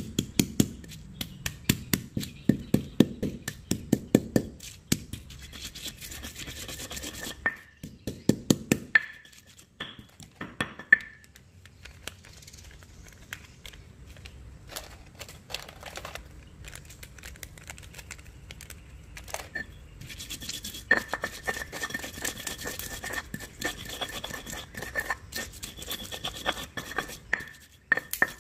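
Stone pestle crushing and grinding chillies, tomato and shallots in a stone mortar (Indonesian cobek and ulekan). Rapid knocks of stone on stone come first, then rubbing, scraping strokes of stone against stone through the wet paste, with a quieter stretch in the middle.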